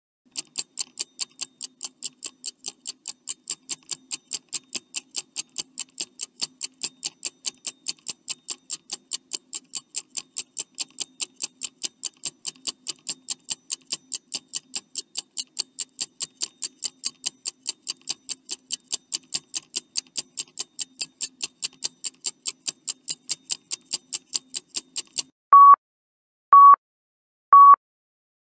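Countdown timer sound effect: a clock ticking quickly and evenly, then stopping near the end and giving way to short beeps a second apart, the warning that the time is running out.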